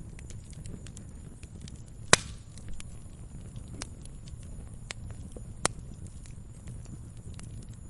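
Wood campfire crackling with frequent small snaps. Two louder sharp pops stand out, one about two seconds in and one just past halfway, over a steady low rumble.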